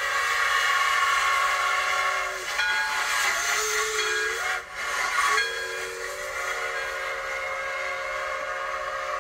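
Steam train whistle sounding a long held several-note blast over continuous hissing steam. It breaks off and wavers about two and a half seconds in, then sounds steadily again from about five seconds on.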